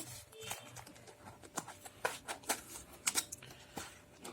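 Cardboard phone packaging being handled and pried at: a run of irregular small clicks and scratches.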